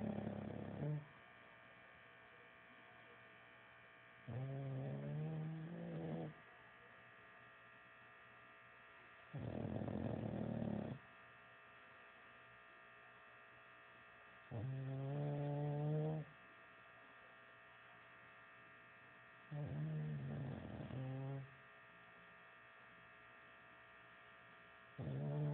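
Snoring in slow, regular breaths, one snore about every five seconds, each lasting a second or two; some are rough and rattly, others carry a clear pitched tone. A steady electrical hum runs underneath.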